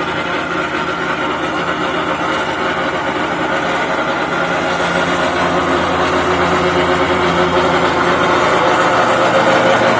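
Exmark zero-turn lawnmower running steadily, its engine and the rattle from under the mowing deck that the owner is trying to diagnose; the sound grows gradually louder.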